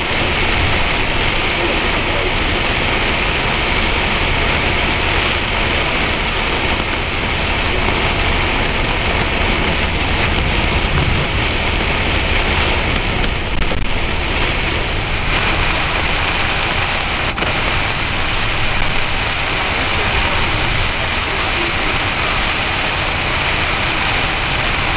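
Heavy rain and wet-road tyre noise heard from inside a moving vehicle: a loud, steady wash of rain and spray over low road rumble.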